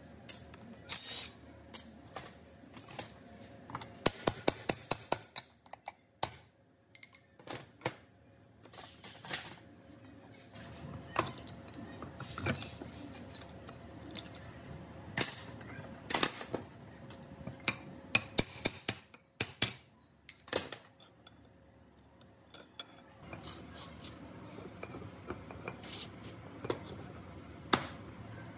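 Metal parts and hand tools being handled, clinking and knocking at irregular intervals, with a quick run of about eight taps around four seconds in.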